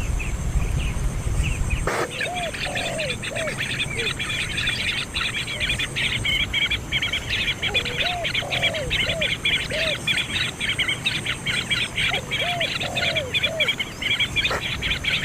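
Baby birds' rapid, high begging chatter, dense and continuous, with lower arched calls repeating about once a second. A low rumble at the start stops with a click about two seconds in.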